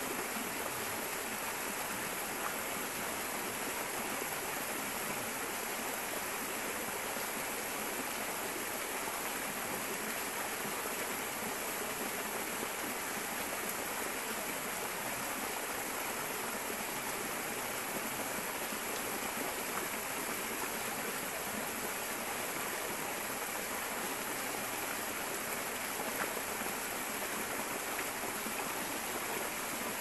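Small waterfall splashing steadily into a shallow pool, a constant rush of running water with no breaks or changes.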